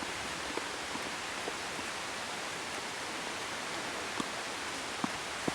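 Steady hiss of rain falling, with a few faint short knocks near the end.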